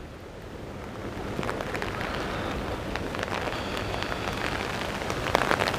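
Rain pattering on an umbrella, many small drop clicks over a steady rush of fast-flowing river water that grows louder in the first couple of seconds.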